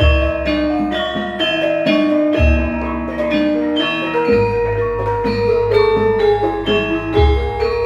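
Javanese gamelan ensemble playing a gending: bronze metallophones strike a steady run of ringing notes, with deep gong strokes sounding about every two to three seconds.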